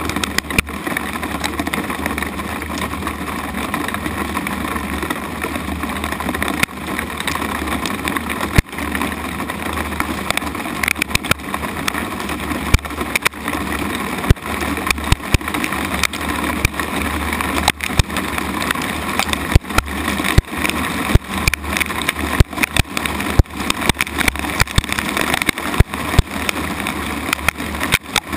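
Hail and rain pelting a wooden deck: a dense, steady patter with frequent sharp clacks of hailstones striking close by. The hardest hits come more often in the second half.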